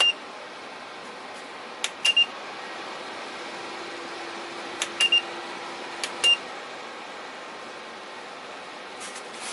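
Minthouz PTC ceramic fan heater blowing steadily. Four times a button click is followed by a short high beep as its settings are changed.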